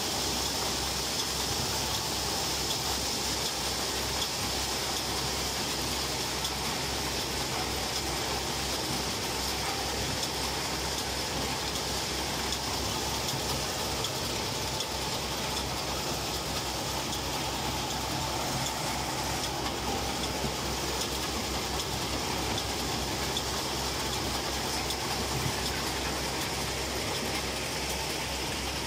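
Dry bean harvester running steadily: a constant engine and machinery noise while bean plants are carried along its rod conveyor.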